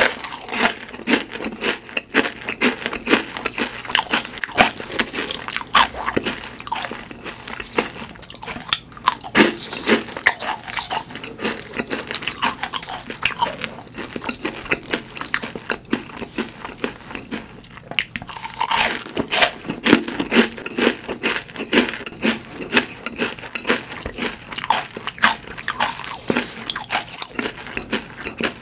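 Close-up crunching and chewing of crispy deep-fried food, one bite of crackling after another, with a louder run of crunches about two-thirds of the way in.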